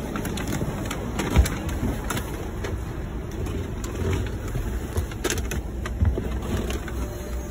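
Inside a running bus: a steady low engine and road rumble, with scattered short clicks and rattles.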